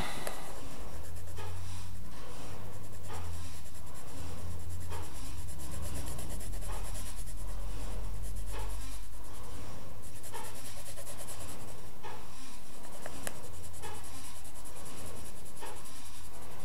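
Black colouring pencil shading on paper: repeated short strokes of the pencil rubbing back and forth across the sheet, over a steady low hum.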